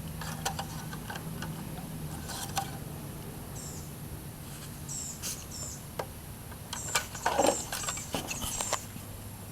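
Light clicks and handling noises of an engine dipstick being pulled out, read and pushed back into its tube, with several short high squeaks in the second half.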